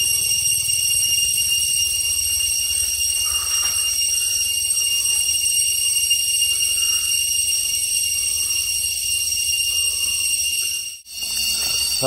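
Crickets calling in a steady, shrill chorus, several high-pitched tones held without a break; the sound drops out for a moment near the end.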